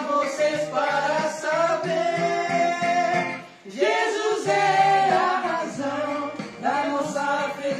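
Three men singing a song together in Portuguese without instruments, holding long notes, with a short pause between phrases about three and a half seconds in.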